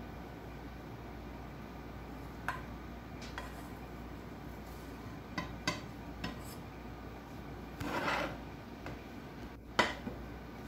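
Nonstick frying pan and silicone spatula being handled: scattered light knocks and scrapes, a longer scrape about eight seconds in, and a sharp clack near the end as the pan is set back down on the glass-top stove.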